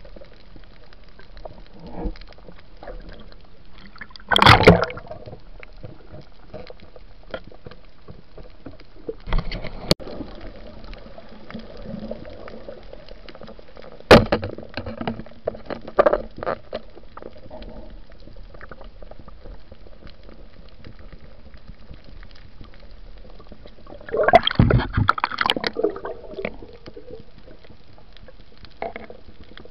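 Underwater water noise as a diver swims: a steady wash with gurgling, broken by short loud bubbling or splashing bursts about four and a half seconds in and again near sixteen seconds, and a longer loud burst near twenty-five seconds. There is one sharp knock at about fourteen seconds.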